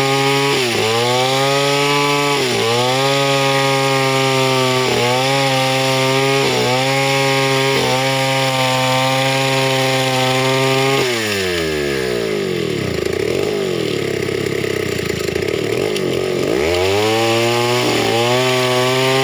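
Two-stroke chainsaw running at high revs and cutting wood, its pitch dipping briefly every second or two as the chain bites under load. About eleven seconds in the engine drops to a low, wavering idle, then revs back up near the end.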